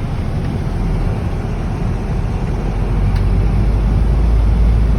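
Steady low rumble of a vehicle driving along a road, swelling slightly near the end.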